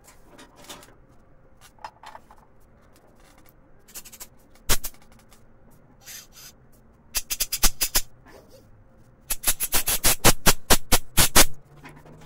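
Compressed-air blow gun blowing out the passages of a stripped carburetor body in short blasts of hiss. There are a few single puffs, then rapid strings of quick blasts, about seven a second, just past halfway and again near the end. This is the stage of clearing dirt from the carburetor's jets and passages.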